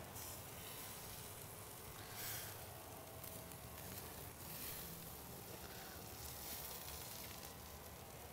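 Ribeye steaks sizzling faintly on a charcoal kettle grill, a soft steady hiss that swells a little now and then.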